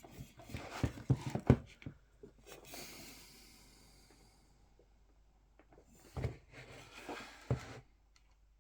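Handling of an opened computer power supply: a cluster of sharp clicks and knocks, a soft rustling hiss about three seconds in, and a few more knocks near the end.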